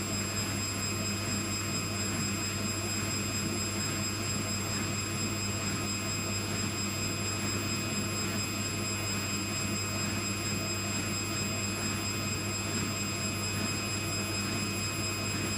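Indesit 860B washing machine spinning its drum with a steady, even drone. The spin is slow: the owners reckon it at only 200 to 250 rpm, though it is set for 800.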